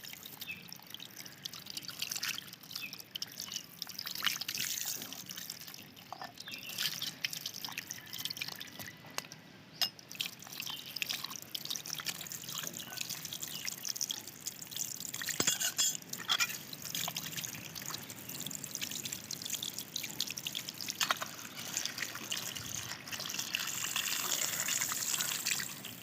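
Water trickling and dripping, with many small irregular splashes and ticks, as a remote-control off-road car is washed.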